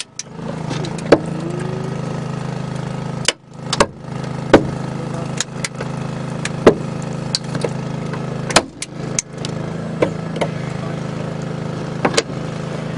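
Hydraulic rescue cutter biting through the bottom of a car's B-post for a relief cut, with repeated sharp cracks of metal giving way. Under them the small engine of the hydraulic power unit runs steadily.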